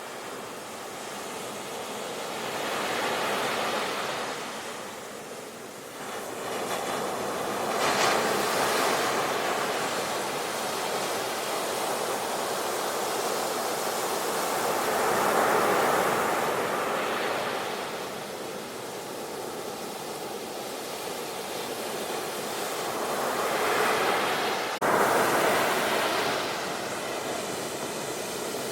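Sea waves breaking and washing up the shore, swelling and falling away every several seconds, with a sudden jump in level a few seconds before the end.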